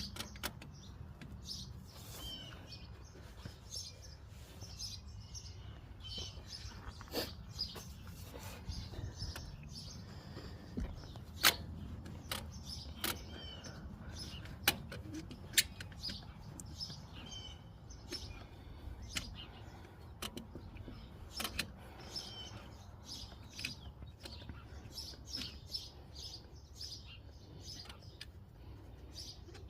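Songbirds chirping in short, repeated calls, with a few sharp clicks or knocks, the loudest near the middle, over a low steady rumble.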